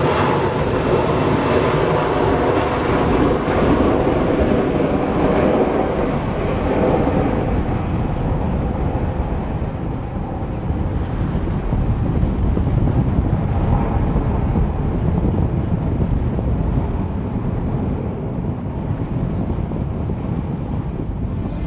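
A Boeing 737-400's CFM56 turbofan engines at take-off power as the jet rolls, lifts off and climbs away. A loud roar with a buzzing whine through the first several seconds gives way to a deep rumble as the aircraft recedes.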